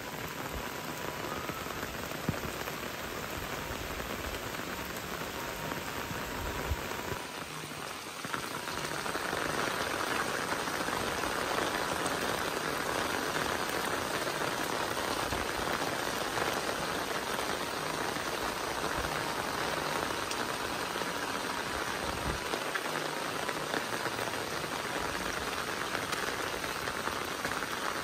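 Heavy rain falling steadily, a continuous hiss with no other distinct sounds; it gets somewhat louder about eight seconds in.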